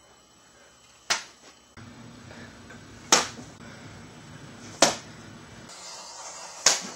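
Four sharp cracks about two seconds apart: a pool cue swung like a bat, striking thrown tangerines.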